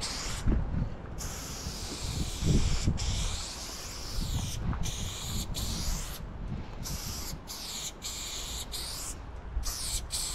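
Aerosol spray paint can hissing in a run of strokes as a black outline is sprayed. The hiss stops and starts again many times with brief pauses: longer strokes in the first half, shorter quick ones after.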